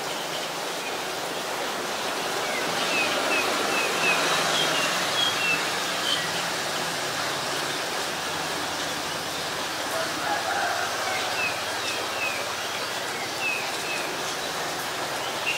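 Steady rain falling. Over it, a bird gives two runs of quick, short high chirps, about four a second: one a couple of seconds in and another past the middle.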